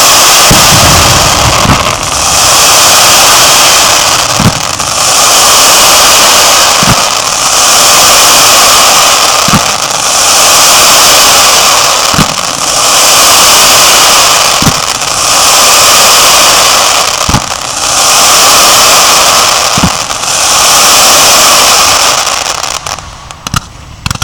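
Very loud, distorted hissing noise that swells and dips in an even cycle about every two and a half seconds, with a short low knock at each dip. Near the end it cuts off and gives way to the rapid crackle of fireworks.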